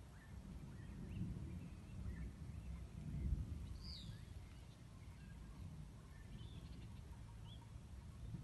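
Birds calling in short, scattered chirps over a low, uneven rumble that swells about a second in and again about three seconds in.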